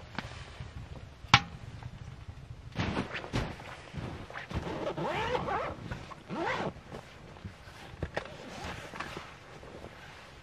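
A single sharp pop from burning firewood about a second in. Then a string of thuds, rustling and squeaky crunching as gear is handled on a snowmobile standing in the snow.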